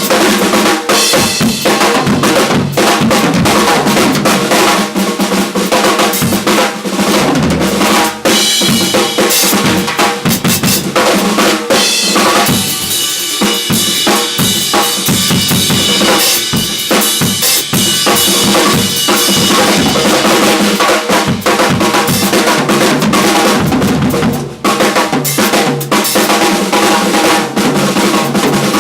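A drum kit played solo, loud and busy, with rapid strokes packed closely together.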